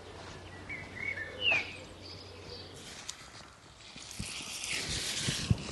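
Birds chirping in short calls, one sliding up and down in pitch, then a rustling and crackling of pea plants being handled and pulled, with a few dull thumps near the end.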